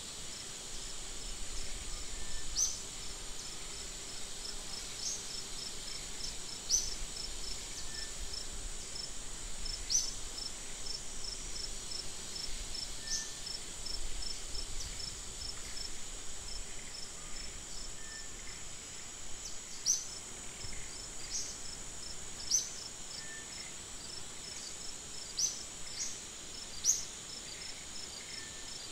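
Steady high-pitched insect chorus with a fast, even ticking, broken every two to three seconds by a short, louder rising chirp.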